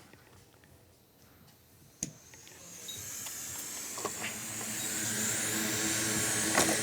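A hot air rework station switched on with a click about two seconds in, then its fan blowing with a steady rushing hiss that builds up gradually, as it heats to take components off a logic board.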